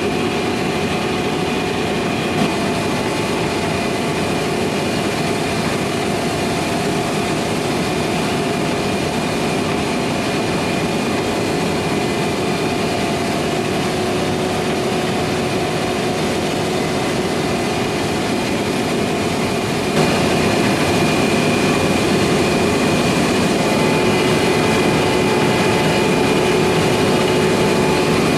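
Heavy farm machinery engine running steadily under load, with a constant whine over the hum; it steps up slightly in loudness about twenty seconds in.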